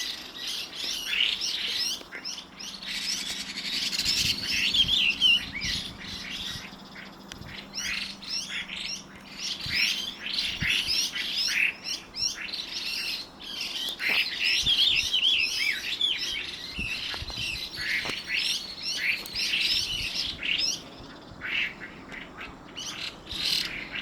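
Chinese hwamei singing: a rapid, continuous run of varied whistled and warbled phrases with harsh squawking 'gā-gā' notes mixed among piping 'pī-pī' ones. The song thins briefly about 7 seconds and again about 21 seconds in.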